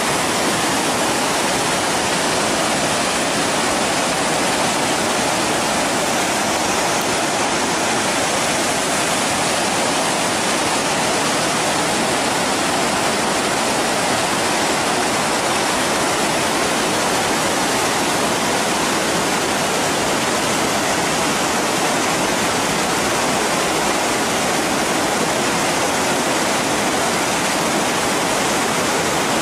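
Water of the Rio On rushing over a waterfall and cascades, a steady loud rush with no change.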